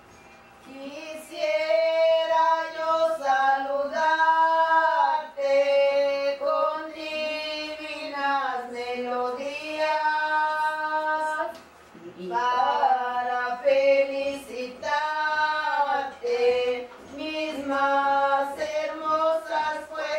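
Women's voices singing a slow song together in long held phrases. The singing begins about a second in and breaks off briefly about twelve seconds in before going on.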